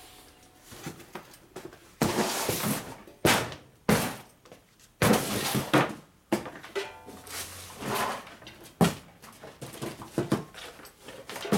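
Metal tools and parts clattering and knocking as they are shifted around on a workbench to clear space, with several sharp thunks among the rattling.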